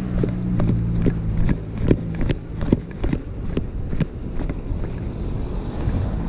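Footsteps on cobblestone paving, with irregular sharp ticks and wind on the microphone. Under them a car engine runs with a steady low hum that fades about halfway through.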